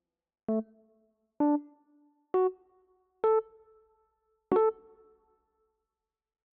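Five single synthesized keyboard notes played one at a time, about a second apart, each with a sharp attack and a quick fade. They step upward in pitch, and the last note repeats the pitch of the one before it.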